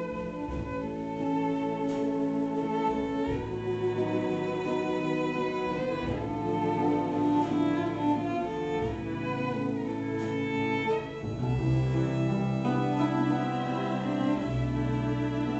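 Live string ensemble of two violins, viola and cello bowing sustained melodic lines in a jazz-classical piece. Low bass notes underneath grow stronger about eleven seconds in.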